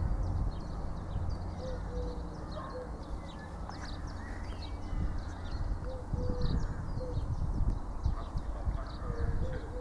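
Birds chirping and calling again and again over a steady low rumble.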